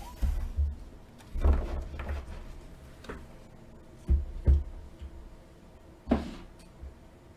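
Trading cards and card packaging handled on a tabletop: a series of dull knocks, with short rustles about a second and a half in and again about six seconds in.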